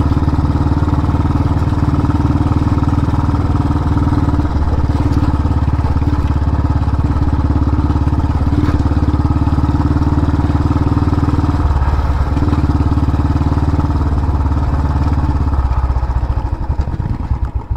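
Royal Enfield single-cylinder motorcycle engine running at a steady, even pace while riding on a sandy dirt track, easing off and wavering just before the end.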